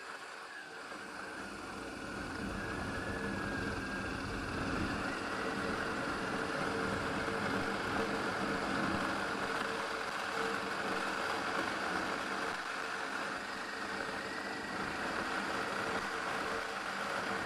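Motorcycle engine running steadily with a constant hum, a little louder after the first couple of seconds.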